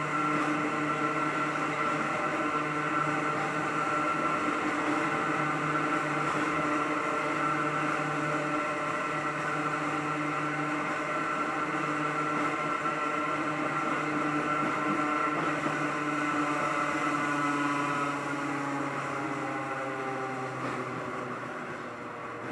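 Hakone Tozan Railway Mo1-type train's nose-suspended traction motors and gears whining steadily as it runs, heard on board. Near the end the whine eases and drops a little in pitch as the train slows.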